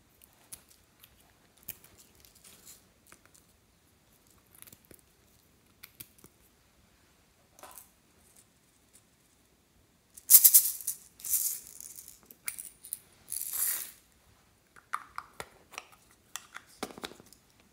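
Small plastic pieces handled with light clicks and taps, then a few loud rattling shakes about ten seconds in, and a run of sharp plastic clicks near the end as a small bear-shaped plastic container is pulled open.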